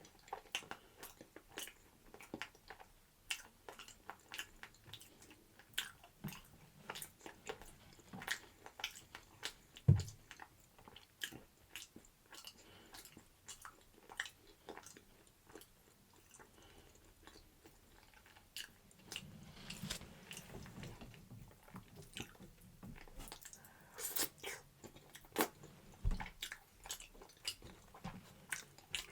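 A person eating close to the microphone, biting and chewing food with many small wet clicks and smacks, and a single heavier thump about a third of the way through.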